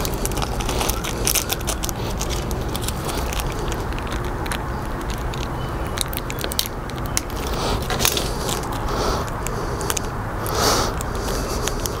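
Light clicks and crackles of a small motorcycle chain master link and its packet being handled in gloved hands, over a steady low background rumble.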